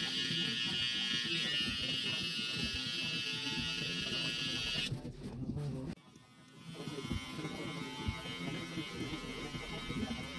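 Electric hair trimmer buzzing steadily as it cuts at the temple, cutting out about five seconds in. After a brief lull a hair clipper buzzes steadily again through the rest.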